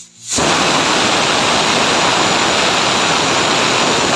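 Pressure cooker whistle: a loud, steady rush of escaping steam that starts suddenly and keeps going. It is the cooker's first whistle while jeera rice cooks under pressure.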